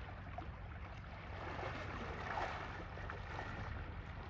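Water sloshing and splashing in a pool, with a steady low wind rumble on the microphone.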